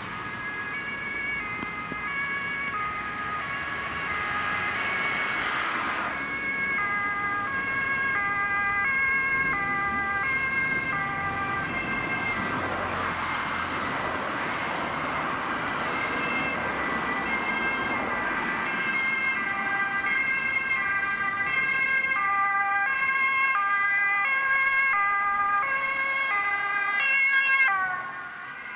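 Two-tone hi-lo sirens of an ambulance and a police car close behind it on an emergency run, their alternating notes overlapping out of step. The sirens grow louder as they approach, and near the end the pitch falls sharply as the ambulance passes close by.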